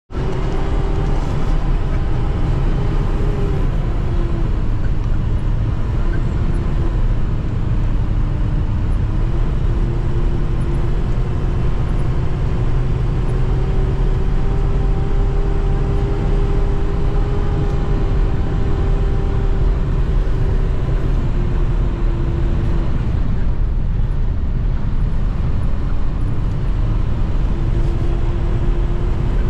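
Van driving on an unpaved road, heard from inside the cab: a steady low road-and-tyre rumble under an engine hum whose pitch dips and rises a few times as the speed changes.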